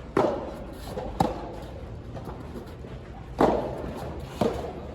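A soft tennis rally: the rubber ball popping off rackets, four sharp hits in two pairs about a second apart.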